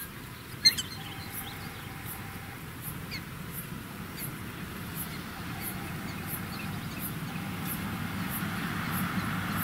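Black-tailed prairie dog giving a single sharp chirp less than a second in, followed by a few fainter chirps. Under them a low rumble grows louder toward the end.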